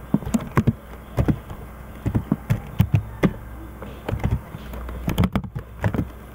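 Computer keyboard typing: irregular keystrokes in short runs of several clicks, with pauses between, over a faint low steady hum.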